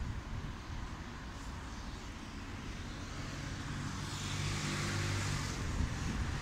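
A motor vehicle passing close on a city street: its engine hum builds, swells with tyre noise, then fades away, over steady traffic background.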